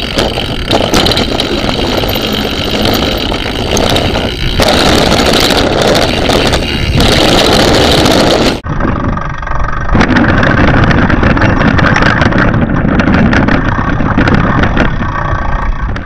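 Loud rush of wind on a bike-mounted action camera's microphone, mixed with the rattle and clatter of a downhill mountain bike and the crunch of its knobby tyres on a rough dirt trail. The sound cuts abruptly a little past halfway to a second run that sounds much the same.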